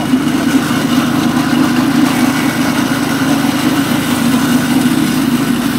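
Engine-driven chaff cutter running at a steady speed.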